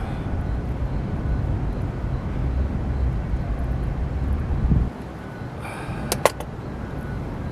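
Outdoor ambience: a steady low rumble that drops off abruptly about five seconds in, followed by a couple of sharp clicks.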